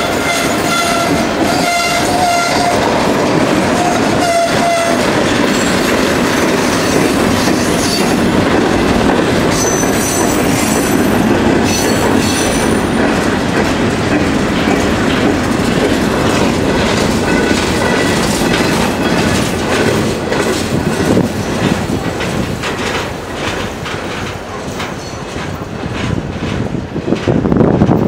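Freight train tank cars and covered hopper cars rolling past close by, wheels clacking over rail joints under a steady rumble, with a high wheel squeal over the first few seconds. The sound thins as the last car goes by, and wind buffets the microphone at the end.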